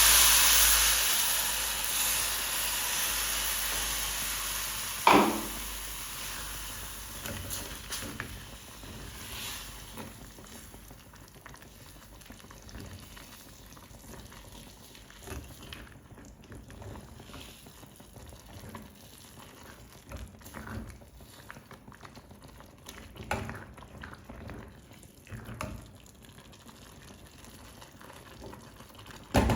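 Stock water just added to a hot pot of oil and fried onion base, sizzling with a loud hiss that dies away over about ten seconds, with one sharp knock about five seconds in. After that, faint scrapes and clinks of stirring in the pot.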